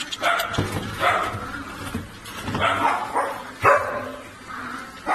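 Young puppies yipping and barking in short bursts, with one sharp knock, the loudest sound, about three and a half seconds in.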